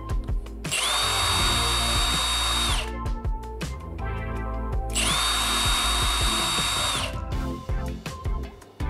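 Milwaukee M18 FUEL ½-inch high torque impact wrench run twice, each burst about two seconds, with a whine that climbs as it starts and drops as it stops. Background music plays underneath.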